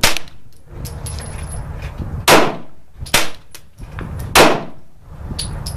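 Winchester Wildcat .22 LR semi-automatic rifle fired four times at an uneven pace, sharp cracks at first about two seconds apart and then about a second apart, with fainter shots from other shooters on the range in between.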